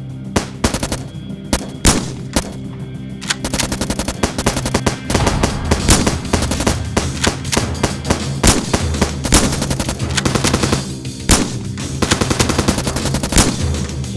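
Rapid, continuous gunfire like a machine gun, dense shots throughout, over background music with a steady low bass line.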